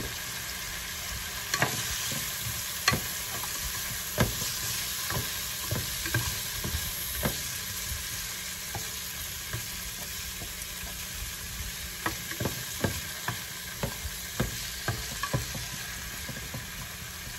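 Diced onion and green bell pepper sizzling steadily in a ceramic nonstick pan while a spatula stirs them, tapping and scraping against the pan bottom in irregular clicks, more often near the end.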